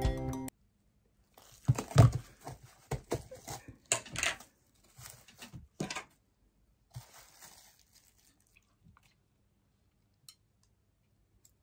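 Plastic miso tub being opened: its lid and inner plastic film crinkle and rustle in irregular bursts, loudest about two seconds in, fading to a few faint clicks near the end.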